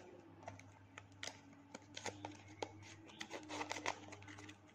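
A paper blind bag being cut open with scissors and handled: faint crinkling with scattered small snips and clicks.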